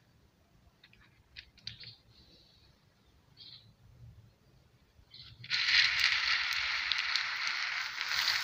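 A few faint chirps. Then, about five and a half seconds in, a loud dense rattle starts suddenly: a hand stirring through dried black-eyed beans in a metal tray.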